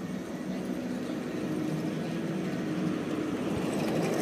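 Steady low engine hum, as of a vehicle running nearby, growing slightly louder.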